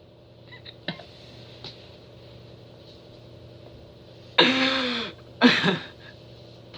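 A man's voice making two short non-word vocal sounds, the first longer and louder, like a cough or throat clearing, after a few faint small clicks.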